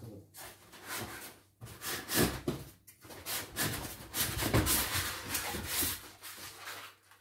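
Polystyrene foam packing blocks rubbing and scraping against each other and the cardboard box as they are worked loose and pulled out. The scraping comes in irregular strokes and is loudest in the second half.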